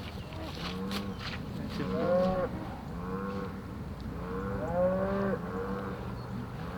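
A flock of geese honking: short, arching calls repeating about once a second, several birds overlapping, loudest about two and five seconds in.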